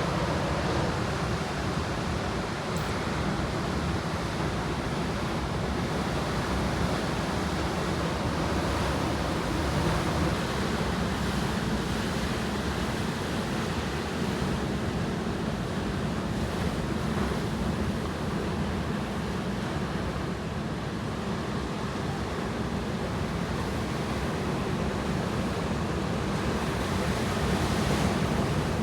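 Sea waves breaking and washing on the shore in a steady surge that swells and eases slowly, with some wind buffeting the microphone.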